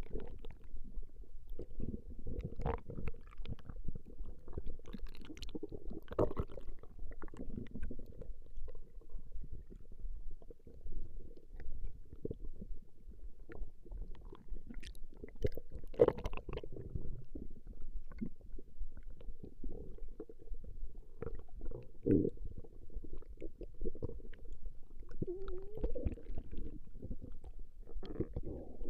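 A person's stomach growling: a continuous, irregular low rumbling broken by short sharper pops, with a brief rising whine near the end.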